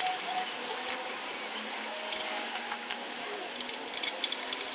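Hand tools working on the car: short bursts of rapid clicking and rattling, one cluster about two seconds in and a denser run near the end.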